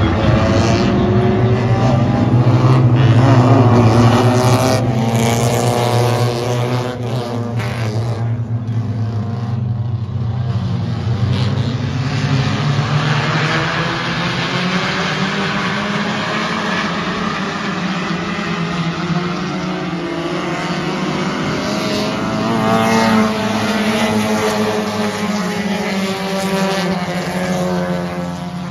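A field of V6 stock cars racing around an oval track, their engines rising and falling in pitch as they work through the laps. The pack is loudest about four seconds in and again around twenty-three seconds, then drops back as the cars go down the far side.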